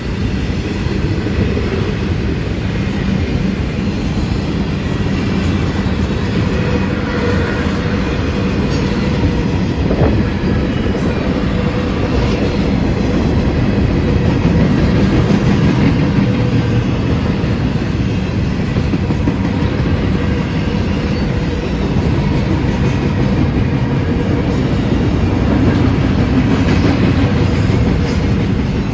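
Northbound CSX intermodal freight train's container cars rolling past at speed, a steady heavy rumble of steel wheels on rail with occasional faint knocks.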